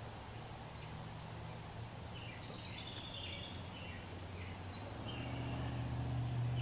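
Woodland ambience: a small bird chirping a few times about a third of the way in and again later, over a low steady hum that grows louder in the second half.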